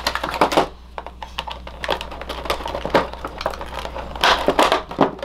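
Stiff plastic toy packaging being handled and cut: an irregular run of clicks, snaps and crinkles from the clear plastic trays as an action figure is freed, with louder clusters at the start and about four seconds in.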